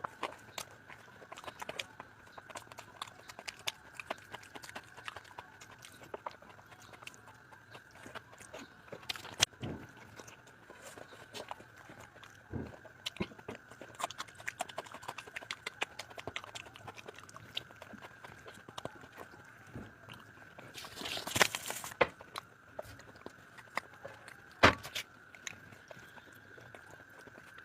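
Close-miked eating sounds: chewing, wet mouth clicks and smacking on curry and rice, scattered and irregular, with a louder noisy burst about three-quarters of the way through. A faint steady high whine runs underneath.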